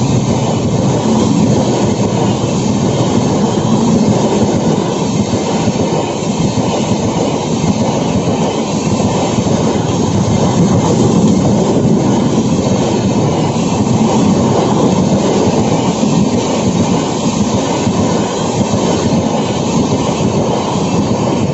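Passenger train running along the line, heard from inside a carriage: steady, loud wheel-and-rail running noise.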